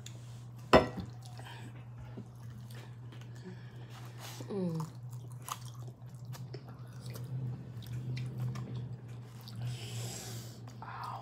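Close-miked chewing and mouth sounds of someone eating sauced chicken wings, with scattered small clicks and smacks. A sharp click about a second in is the loudest sound, a brief voiced sound comes near the middle, and a steady low hum runs underneath.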